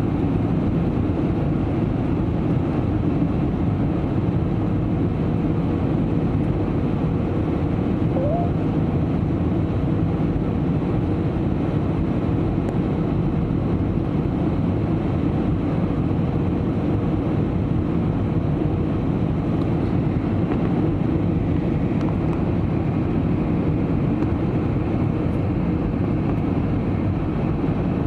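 Steady cabin roar of an Airbus A320-family airliner in flight: engine and airflow noise heard from inside the passenger cabin, with a faint steady hum through the middle.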